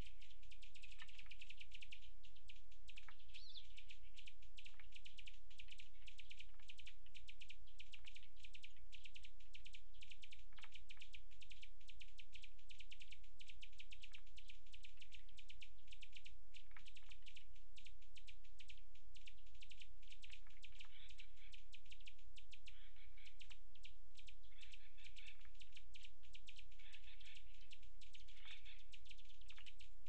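Small birds chirping in short scattered calls, more often in the last ten seconds or so, over a steady high, rapid buzzing trill.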